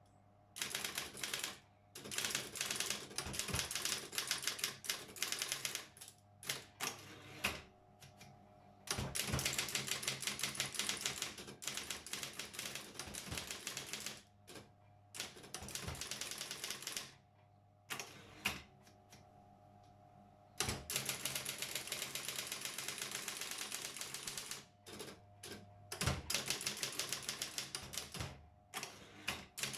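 Brother 4612 electric typewriter typing in long runs of rapid key strikes broken by short pauses, with a few louder single strokes. Its motor hums steadily underneath, heard in the gaps.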